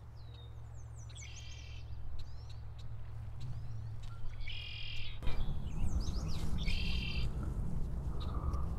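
Small birds calling in several short, high, chattering bursts, over a steady low rumble that gets louder about halfway through.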